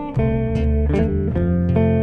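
A small instrumental trio playing a waltz, led by a hollow-body electric guitar with double bass notes underneath.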